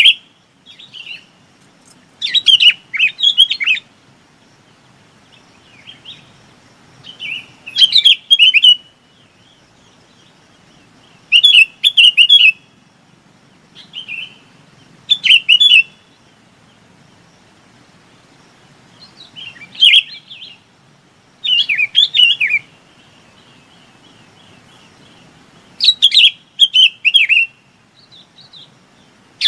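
Bulbul (chim bông lau) calling to its flock. Short, loud phrases of a few quick, bubbly notes repeat about every three to four seconds, with fainter single notes between them.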